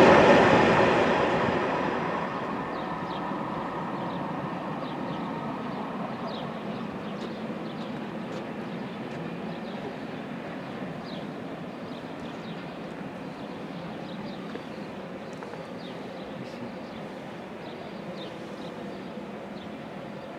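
Freight train of tank wagons passing on the rails, its wheel noise loud at first and falling away over about two seconds, then a lower steady rumble as it moves off. Faint short high chirps come through every second or so.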